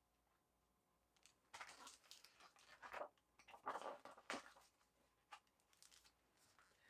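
Near silence with faint, brief rustling of paper, a picture book's page being turned, in a few short bits between about one and a half and four and a half seconds in.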